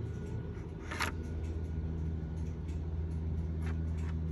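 Steady low hum of a running engine or motor, with a couple of short sharp clicks, about a second in and near the end, as the plastic RC boat hull is handled.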